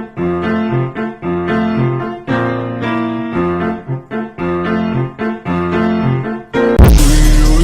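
Piano music, a pattern of chords struck again and again at an even pace. Nearly seven seconds in it cuts to a louder, fuller piece.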